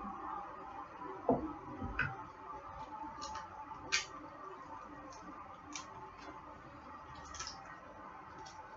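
Garlic cloves being broken apart and peeled by gloved hands: faint scattered crackles and taps, a few seconds apart, over a faint steady background hum.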